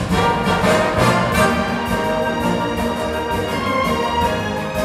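Full orchestra with brass, played back through M&G Audio V8F floor-standing speakers driven by a Line Magnetic LM-508IA valve amplifier and heard in the listening room. A loud orchestral accent lands right at the start, and dense sustained chords follow.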